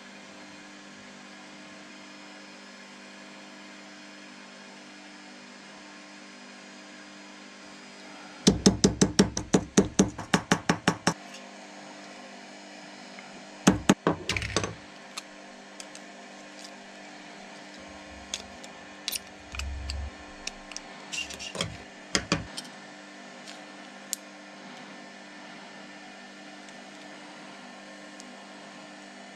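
Small hammer tapping a piece of aluminium can sheet against a rounded steel form: a quick run of about a dozen sharp taps, about five a second, then a few more taps and scattered lighter clicks of metal being handled. A steady electrical hum runs underneath.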